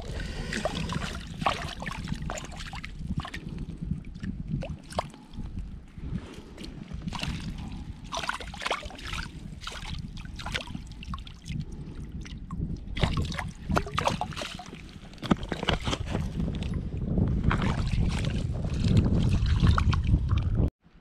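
Water splashing and sloshing as a rainbow trout is handled in a landing net held in shallow water, with many short irregular splashes. A low rumble runs underneath, grows louder near the end, and cuts off suddenly.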